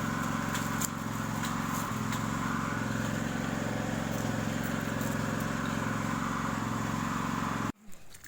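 Small engine running steadily at a constant speed, cutting off abruptly near the end.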